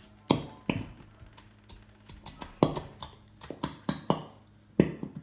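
Irregular clicks and taps of hands fumbling with a container and its cap, trying to get it open; the cap is hard to open.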